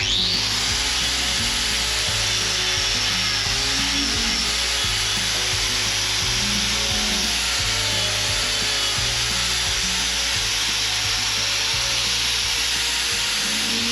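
Power grinder with a hoof-trimming disc grinding down a cow's overgrown hoof horn: a steady, even rasping that starts sharply and holds, with background music under it.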